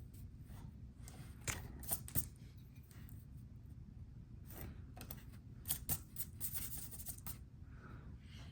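Irregular clicks and short scrapes of hand tools working wood, over a low steady hum.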